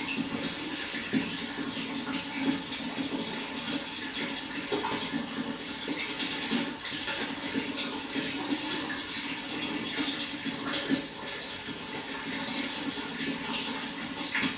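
Flowing water running steadily, a continuous rushing splash with a few brief louder splashes.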